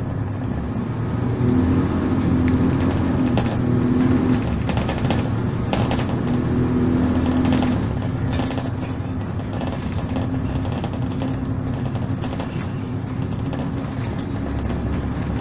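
Diesel engine of a Volvo Super Olympian double-decker bus running while the bus is under way, heard from inside, with the body rattling. The engine works harder and louder for several seconds near the start, then runs on more steadily.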